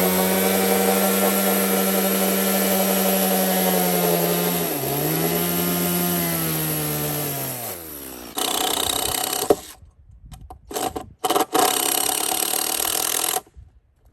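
Stihl two-stroke chainsaw running at high revs and sawing wood. Its pitch dips briefly about halfway as it takes load, then falls away as it winds down. Several more short bursts of loud sawing follow, each starting and stopping abruptly.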